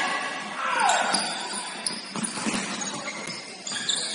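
Basketball game in a gym: sneakers squeaking on the hardwood court in short high chirps, with a few ball bounces and a player's shout near the start.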